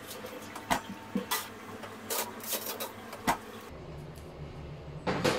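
Oven door open and loaf tins handled inside: metal scraping and rubbing on the wire rack, with sharp clicks and knocks, and a firm knock about three seconds in as the door shuts. The convection fan's low hum is absent while the door is open and starts again just after it closes; more clatter follows near the end.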